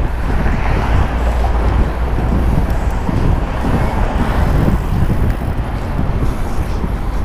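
Wind buffeting the microphone of a helmet-mounted action camera on a moving bicycle: a steady, loud rush, heaviest in the low end.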